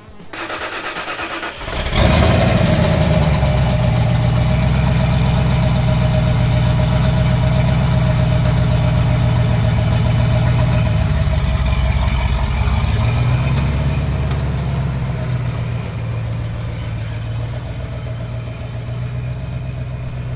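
Ford Ranger pickup's engine running as the truck is driven, coming in suddenly about two seconds in. Its pitch holds steady, dips around eleven seconds and climbs back a couple of seconds later, and it runs a little quieter near the end.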